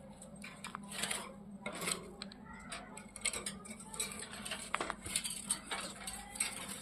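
Pet ringneck parakeets scuffling in their cage: a scatter of irregular clinks, taps and scrapes, like beaks and claws against the cage, with rustling between them.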